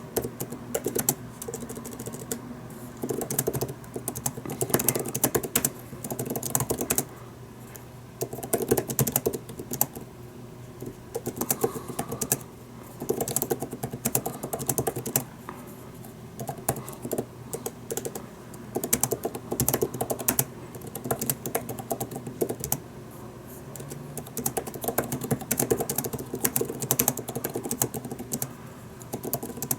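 Typing on the Apple Magic Keyboard for the 2020 iPad Pro: quick runs of scissor-switch key clicks in bursts, with short pauses between them.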